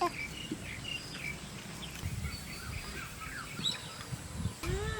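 Small birds chirping in many short, quick calls, over a steady low rumble of outdoor background noise.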